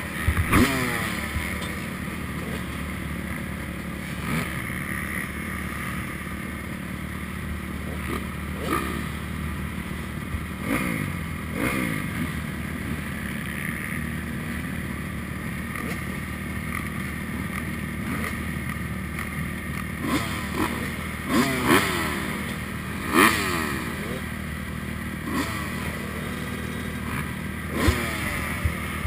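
Several motocross bikes, among them a Honda CRF250R, idling together on the start line, with engines blipped and revved now and then. Rising revs come about ten seconds in, again between about twenty and twenty-three seconds, and once more near the end.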